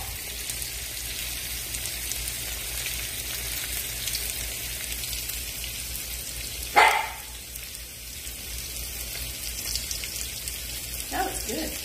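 Butter sizzling and crackling in a skillet on the stove, a steady frying hiss. A short, loud sound falling in pitch cuts in about seven seconds in, and a brief vocal sound comes near the end.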